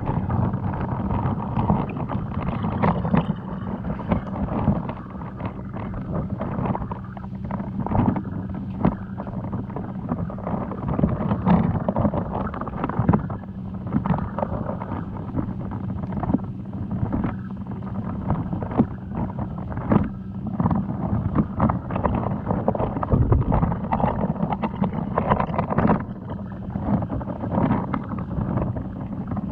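Aquarium noise: a steady low hum under a wash of water sound, with many small clicks and knocks scattered throughout.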